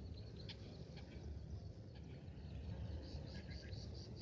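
Strong wind rumbling on the microphone, with a bird chirping in quick, repeated high notes in the background, about four a second, dropping away in the middle and coming back near the end.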